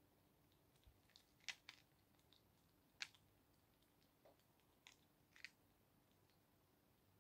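Hedgehog eating from a plastic dish: faint, irregular crunching and clicking of its chewing, a dozen or so sharp crunches spaced out at uneven intervals.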